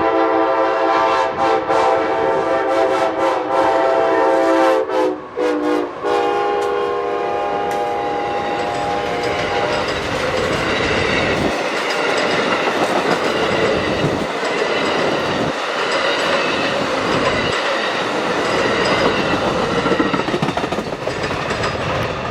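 Amtrak Siemens ALC-42 Charger passenger locomotive's air horn sounding long blasts with a short blast about five seconds in, in the grade-crossing pattern. The horn fades out by about ten seconds in, and the train then passes with steady rolling wheel and rail noise and a clickety-clack over the joints.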